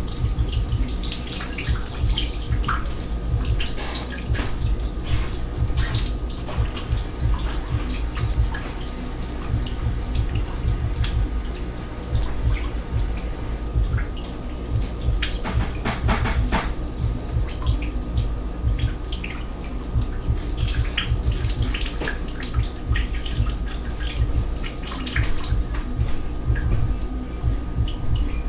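Water running and splashing in a kitchen sink, with scattered drips and splashes over a steady flow.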